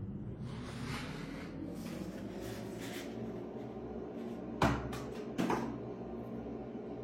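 Two sharp knocks, under a second apart, about two-thirds of the way through, over a steady low hum.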